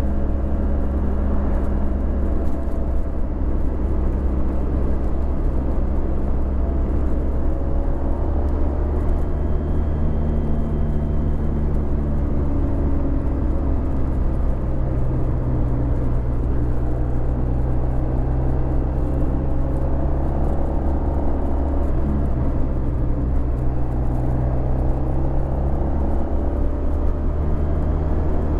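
Honda VFR1200X Crosstourer's V4 engine running through an Akrapovic titanium exhaust while riding. The engine note rises and falls gently with the throttle, over a steady low rumble.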